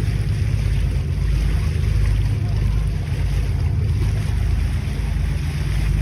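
A ferry's engine running steadily as a deep, even drone, with a rushing noise of water and wind over it.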